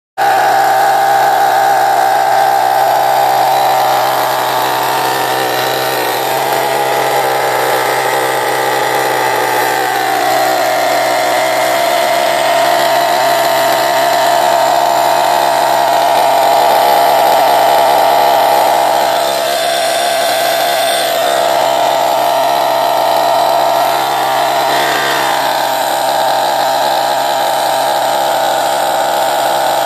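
R36 single-cylinder two-stroke nitro engine of an RC buggy running at a steady high-pitched buzz while it warms up. Its pitch sags twice in the first ten seconds, and it dips and picks up again twice in the second half.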